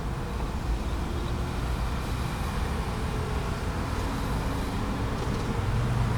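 Road traffic at a busy intersection: a steady mix of vehicle engines, with one engine's low hum growing louder near the end.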